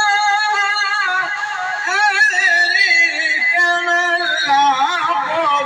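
A man chanting Quran recitation in a high, ornamented voice over a PA system, holding long notes and breaking into quick wavering turns of pitch.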